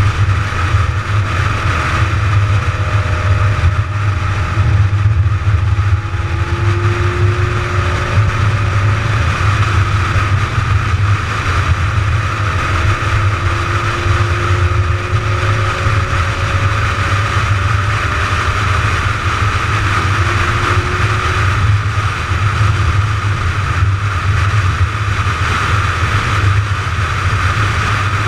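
McLaren 570GT cruising at highway speed, heard onboard: a steady drone of engine, tyre and wind noise, with a few faint tones slowly rising in pitch.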